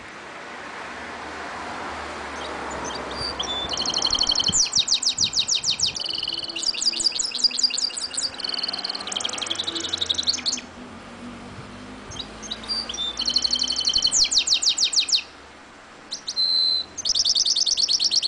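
Caged mule, a finch–canary hybrid, singing in fast rattling trills, in three long bursts with short pauses between them.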